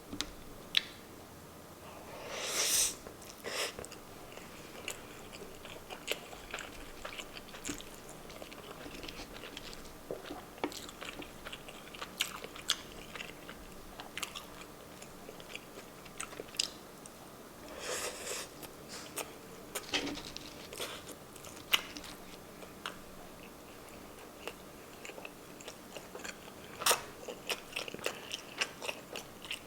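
Close-up eating sounds: a person chewing and biting through meat and rice, with wet mouth clicks and a few louder smacking bites about three seconds in, near the middle and near the end.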